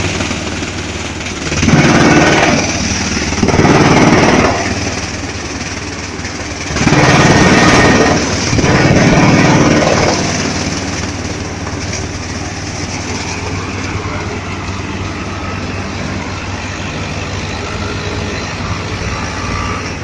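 A drum chipper runs while shredding plastic waste fed in on its conveyor. The grinding swells loudly four times in the first half, then runs more evenly.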